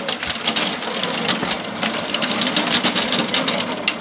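Heavy thunderstorm rain hitting a hard surface: a steady, dense crackle of countless drop impacts.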